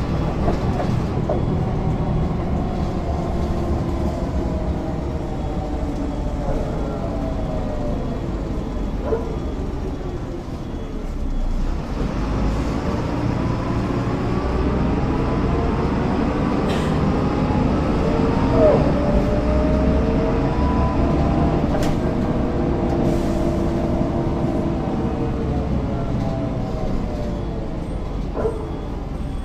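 MAN NL202 city bus with its MAN D08 diesel engine running under way. The pitch rises as the bus pulls away and then falls back as it slows, twice over.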